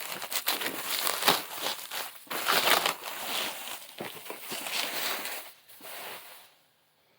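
Packing material crinkling and rustling in irregular bursts as a boxed model aircraft is unpacked by hand; it stops shortly before the end.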